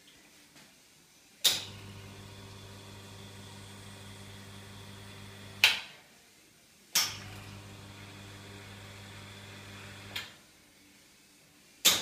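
Wega Atlas two-group espresso machine running its pump in a steady hum as a group dispenses water, switched on and off with sharp clicks. Three runs: about four seconds, then a gap, about three seconds, then it starts again near the end.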